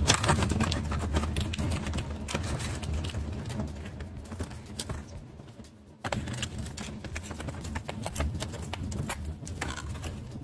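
Cardboard packaging and a glossy sticker sheet being handled and pulled free from the box: a dense run of crackling, rustling clicks, with a brief lull about six seconds in.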